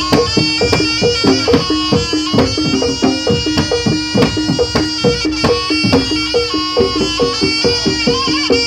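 Javanese jaranan ensemble music: a shrill reed wind instrument plays a melody over a fast, steady drum beat and a held low tone.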